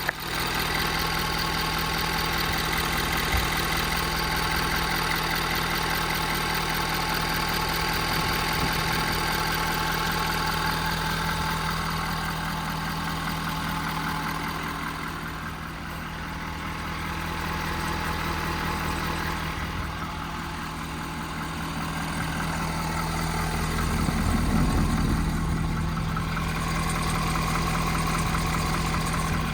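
Ford 6.7 Power Stroke V8 turbodiesel engine running steadily, its low hum dipping slightly a couple of times, then swelling with a deeper rumble near the end.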